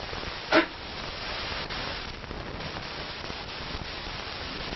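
Steady hiss of room and recording noise, with one short louder burst about half a second in.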